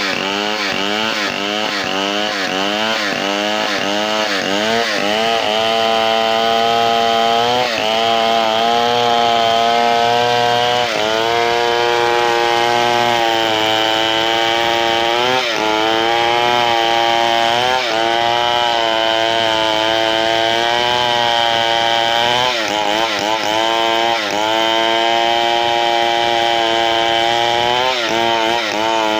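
Large two-stroke chainsaw cutting a big hardwood log. The engine revs surge up and down rapidly for the first few seconds, then it runs at high revs through the cut, with its pitch dipping briefly now and then as the chain loads up.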